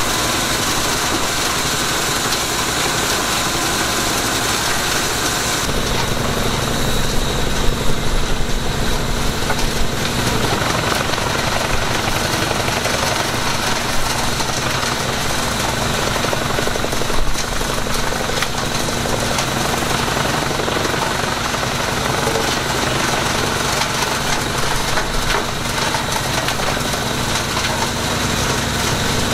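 Fiat 140-90 tractor's six-cylinder diesel running steadily under load, driving a Pezzolato PTH500 wood chipper through its PTO, with a mini excavator's engine running alongside. A few brief louder bursts come as eucalyptus prunings are fed in, around eight and seventeen seconds in.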